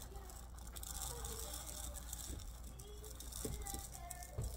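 Dry uncooked rice pouring from a plastic cup into a clear plastic storage container: a steady hiss of grains with a few rattling clicks in the second half.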